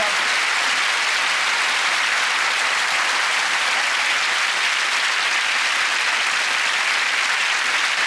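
Studio audience applauding steadily, a dense even clapping with no voices over it.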